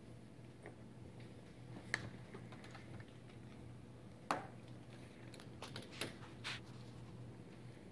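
Quiet room tone with a low steady hum and scattered light clicks and taps. The sharpest click comes about two seconds in, and another just past four seconds.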